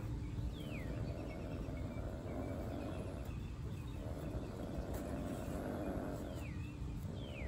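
Outdoor garden ambience: a steady low background rumble, with a bird's short falling whistle once just after the start and twice near the end, and faint chirping in between.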